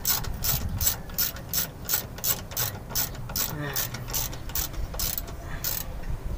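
Ratchet wrench clicking in a steady rhythm, about three clicks a second, as it is swung back and forth to tighten a fitting under the truck. The clicking stops near the end.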